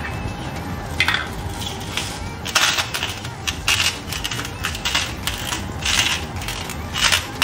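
Seasoning being sprinkled over a pan of mussels in a string of short, gritty bursts, about two a second, starting about a second in.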